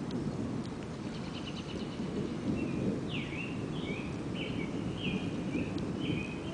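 A songbird singing short whistled phrases, several beginning with a quick downward sweep, plus a fast trill about a second in. Underneath runs a steady low rumble of distant, continuous thunder.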